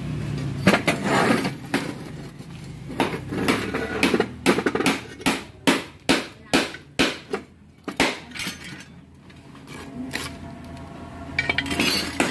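A metal hand tool striking the aluminum crankcase of a single-cylinder engine: a run of sharp, ringing taps about three a second, with rougher scraping before and after.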